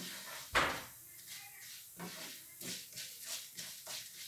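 A single knock about half a second in, then soft scattered clicks and scrapes: kitchenware and grains being handled at a pot of bulgur being toasted on the stove.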